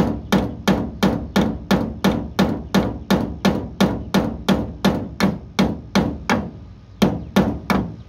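Steel hammer striking a nail that sticks up from a wooden board, in steady, evenly paced blows about two and a half a second, each with a short metallic ring. The hammering is meant to work the nail out of the wood. The blows weaken and pause briefly about six seconds in, then start again.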